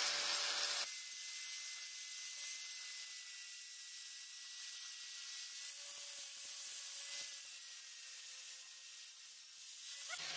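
Angle grinder sanding the steel blade of a bill hook with an abrasive disc. A loud grinding hiss lasts about the first second, then the motor's steady whine carries on under a softer abrasive hiss.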